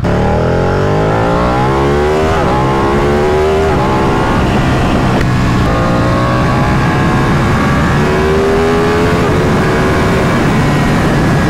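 Ducati 959 Panigale Corse's 955 cc Superquadro V-twin, through its stock exhaust, accelerating through the gears. The engine note climbs and drops back at each upshift, about four times, over a steady rush of wind.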